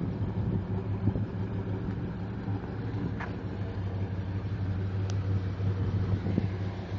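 1968 Plymouth Barracuda's engine idling with a steady, even low hum.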